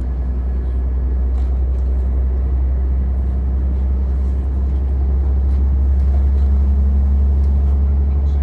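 Passenger train running, heard from inside the carriage: a loud steady low rumble with a steady hum over it and a few faint clicks, growing slightly louder.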